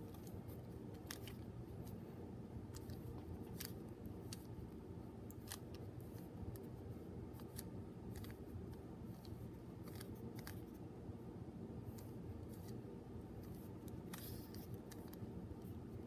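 Small plastic clicks from the layers of a Qiyi 3x3 keychain mini cube being turned by hand, coming irregularly one or two at a time, over a faint steady low hum.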